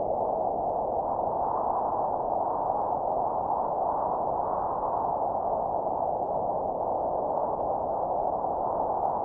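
Steady, dull rushing noise with no distinct tones or separate events.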